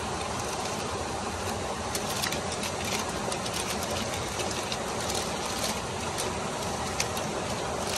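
Steady rushing of a waterfall and river, with aluminium foil crinkling and crackling as it is folded around fish.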